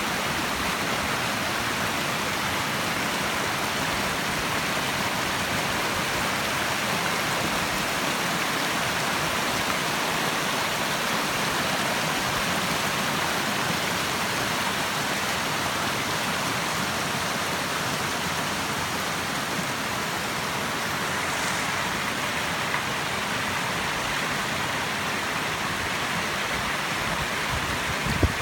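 Steady rush of flowing stream water, an even unbroken wash of noise.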